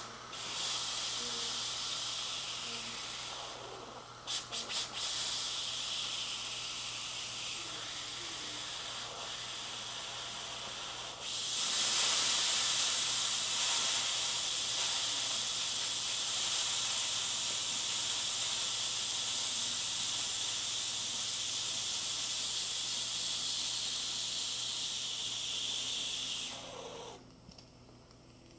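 Grant's handheld steam cleaner hissing out steam, with a few quick clicks about four seconds in. The hiss turns louder about a third of the way through and cuts off shortly before the end.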